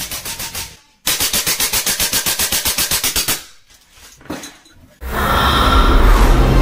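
Full-auto air rifle firing rapid bursts, about ten shots a second: a short burst, then a longer one of about two and a half seconds. Music starts about five seconds in.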